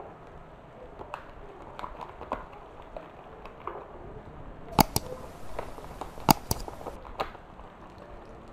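Plastic paste pouch being squeezed and scraped with a spoon over a frying pan: scattered light clicks and crinkles, with two sharp clicks about five and six seconds in, over a faint steady hiss of the pan.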